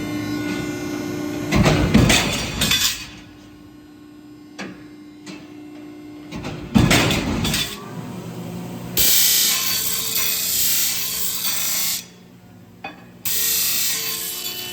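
Steel flat bar and chain clanking as they are handled, with a loud metallic impact about seven seconds in. Later comes a steady harsh hiss that starts and stops abruptly twice, typical of a shop tool working the steel.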